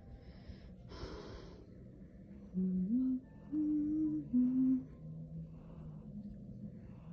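A person humming a slow tune, held notes stepping up and down in pitch, with a short hiss about a second in.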